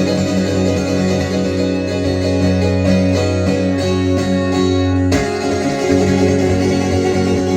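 Acoustic guitar playing an instrumental passage with notes ringing on, and a single sharp click about five seconds in.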